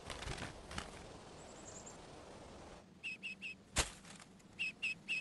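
A female duck's wings flapping as she flies up to her tree-hole nest. Then newly hatched ducklings peep inside the tree cavity: short high peeps in two groups of three, with a sharp click between them.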